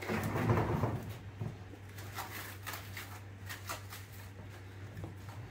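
Plastic cling film being pulled from its roll and stretched over a metal bundt pan, a crinkly rustle loudest in the first second, then light scattered crackles as the film is pressed around the rim.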